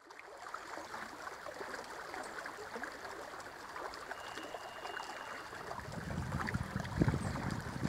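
Shallow water lapping and trickling softly around a dock and a moored inflatable dinghy. From about six seconds in, wind starts buffeting the microphone in low gusts.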